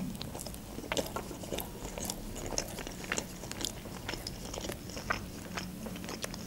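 Close-up chewing of a bite of toasted club sandwich, with many small, irregular crunches of the toasted bread.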